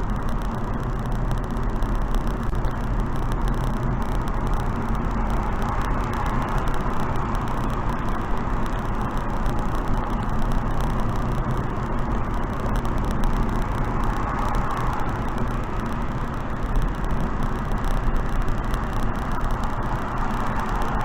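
Steady wind noise and tyre rumble of a car travelling at expressway speed, with a deep low drone underneath and a slight swell in the rush now and then.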